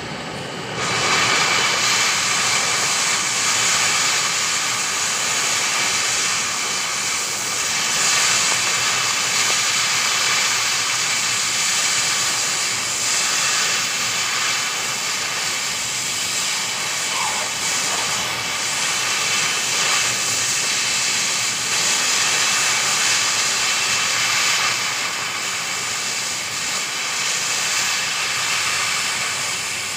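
Oxy-fuel cutting torch hissing steadily as it burns through a seized steel track-shoe bolt. The hiss grows louder about a second in and then holds.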